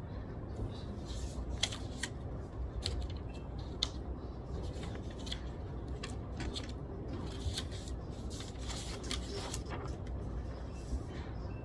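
Steady low library room hum with scattered small clicks and scratches of desk work.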